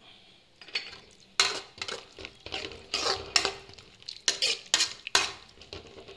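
Steel spoon scraping and clinking against a metal pan in a series of irregular strokes as a watery drumstick and tomato curry is stirred, mixing in the salt just added.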